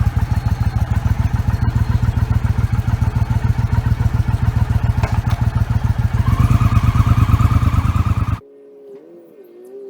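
Motorcycle engine running with a fast, even beat, revving up a little about six seconds in, then cutting off suddenly near the end.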